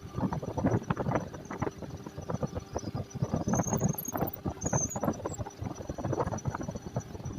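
Lathe drilling with a twist drill fed from the tailstock: a dense, irregular rattling and clicking of the cut, with two brief high squeals a little past the middle.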